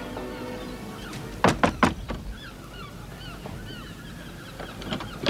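Three quick knocks on a wooden door, with birds calling steadily in the background.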